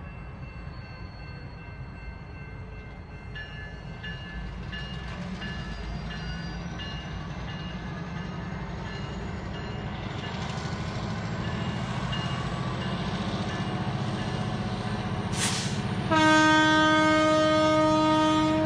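Diesel switcher locomotives running with a cut of boxcars, their engine rumble slowly growing louder. Near the end the locomotive's air horn sounds one long, loud chord-like blast.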